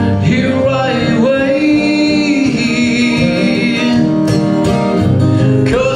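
A male voice singing a folk song to his own acoustic guitar accompaniment, holding one long wavering note in the middle.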